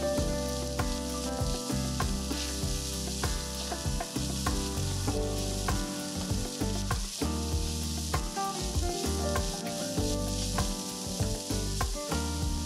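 Grated carrot, onion and garlic sizzling in vegetable oil in a nonstick frying pan, stirred and scraped around the pan with a silicone spatula.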